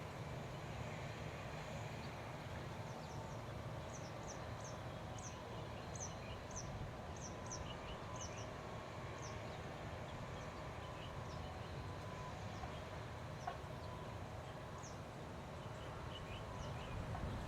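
Rice-field ambience: small birds giving short, high chirps, often in pairs, most busily in the first half, over a steady low rumble.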